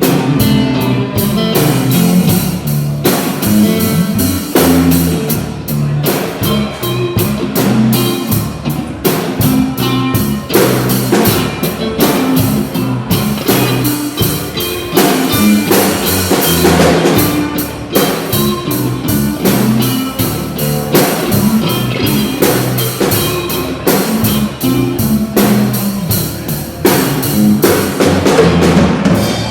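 Band playing an instrumental passage: guitar over a drum kit with bass drum.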